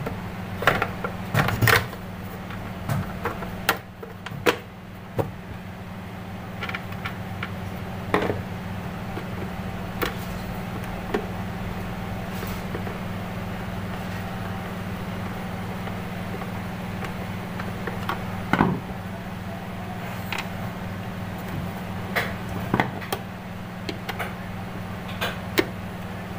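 Scattered clicks and knocks of mixer grinder parts being handled and fitted back together, over a steady low hum.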